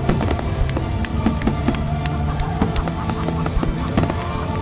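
Music over loudspeakers with many sharp bangs and crackles from fireworks.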